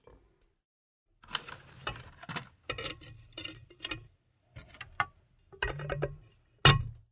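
Wooden butter churn being worked by hand: a run of irregular wooden knocks and rattles, about one or two a second, beginning about a second in.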